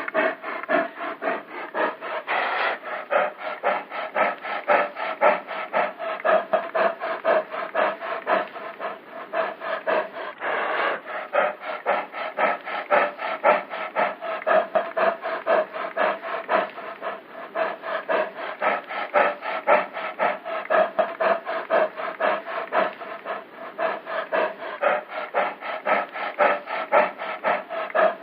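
A bear making a continuous rhythmic rasping sound, about four pulses a second, with a steady buzzing tone running through it.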